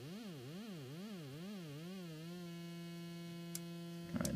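Doepfer Dark Energy Mark I synthesizer's oscillator buzzing, its pitch swept up and down in even glides about twice a second by frequency modulation from its LFO. The swings narrow and it settles to a steady low tone a little over two seconds in. A short noisy crackle comes near the end.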